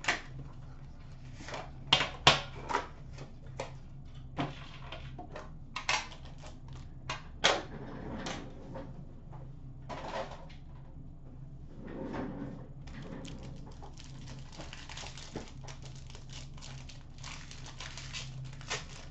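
A hockey card box and its packs being handled and opened: a run of sharp clicks and knocks in the first eight seconds, then softer rustling and scraping of packaging, over a steady low hum.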